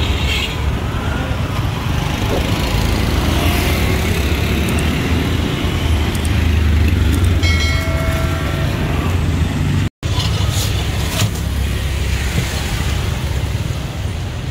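Steady street traffic rumble, with vehicles running past. About eight seconds in, a pitched tone sounds for about a second, and the sound cuts out for an instant near ten seconds in.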